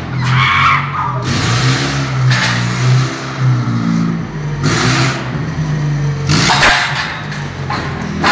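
Forklift engine running steadily, with several short, louder rushes of noise.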